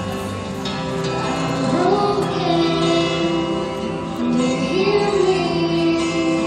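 Young female voices singing into a microphone over musical accompaniment, with two phrases that each sweep up into a long held note.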